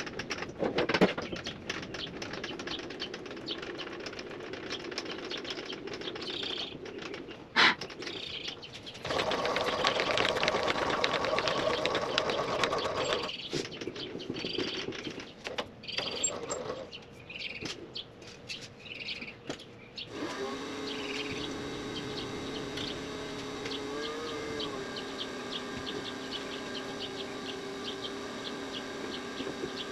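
Precision Matthews PM-25MV benchtop milling machine cutting a metal block to square its sides. The sound changes abruptly several times, loudest about a third of the way in, and in the last ten seconds runs steadily with a fast, even ticking.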